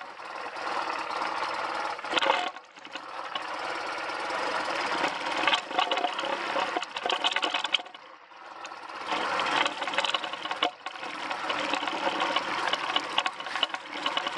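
1991 BMW R100GS Paris-Dakar's air-cooled boxer twin running under varying throttle while riding slowly over rough ground. The sound falls away briefly twice, about two and a half and eight seconds in, and builds up again each time.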